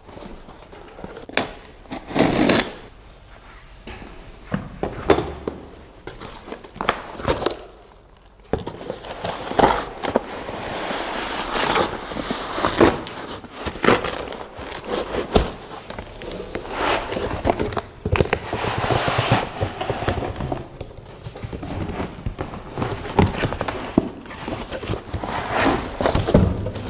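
Packaging and parts being handled while a resin 3D printer is unboxed: irregular rustling, scraping and knocks.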